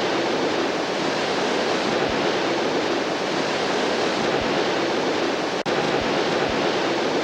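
Steady, loud rush of falling water from Victoria Falls, an even noise with a very brief break about five and a half seconds in.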